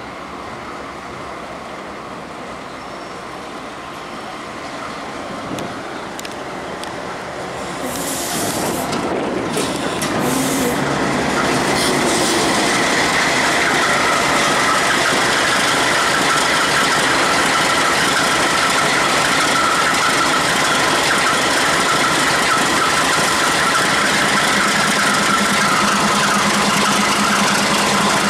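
Ferromex diesel-electric freight locomotives rumbling along at close range, growing louder over the first dozen seconds as they draw near and pass beneath, with a steady high whine over the running engine.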